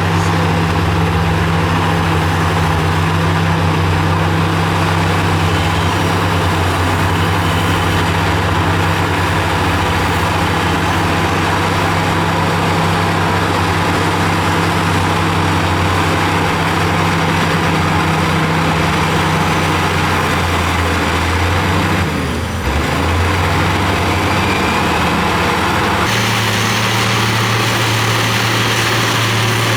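Heavy diesel engine of earthmoving machinery running steadily at work. The engine speed dips briefly about three-quarters of the way in, and near the end the engine note changes abruptly.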